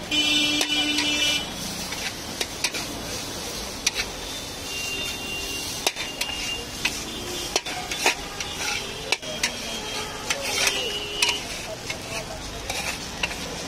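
Metal spatula scraping and clanking irregularly against a large iron wok as chowmein noodles are stir-fried and tossed. A short burst of music with a steady tone sounds over it for about the first second.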